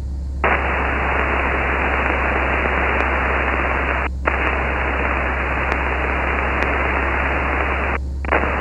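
Aircraft VHF radio static: a loud, even hiss that cuts in abruptly about half a second in, breaks off for a moment about four seconds in and again near the end, over a steady low drone of the cockpit audio.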